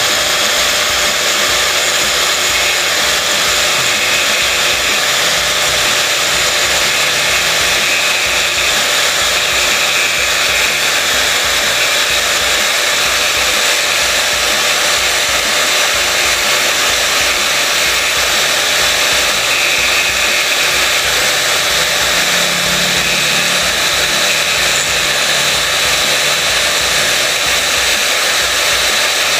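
Handheld electric angle grinder running steadily with a high whine, its abrasive disc grinding down the edge of an acrylic turn-signal lens to make it fit.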